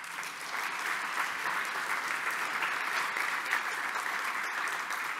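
A large audience applauding: steady, dense clapping.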